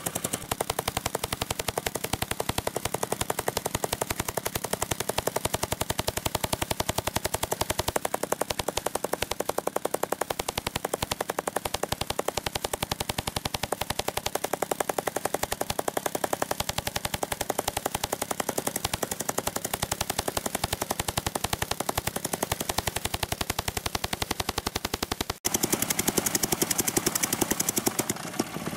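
MTX-60HD tamping rammer with a Honda GX100 engine, its foot pounding gravel in a rapid, steady hammering rhythm. The pounding drops out for an instant about 25 seconds in, then carries on.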